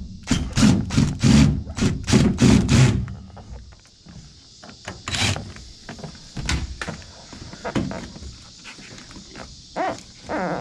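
Knocks and thuds from work on the truck's cab floor: a quick run of about three knocks a second for three seconds, a single knock about five seconds in, then scattered lighter clicks.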